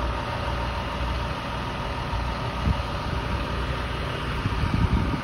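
Utility bucket truck's engine idling steadily, a continuous low rumble.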